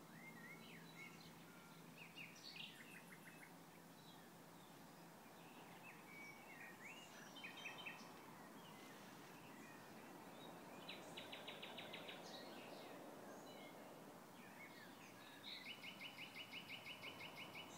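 A songbird in the trees singing a faint, varied song of chirps, short whistles and fast rattling trills, the loudest a rattling trill of about five or six notes a second lasting about two seconds near the end. A low hum is audible for the first few seconds.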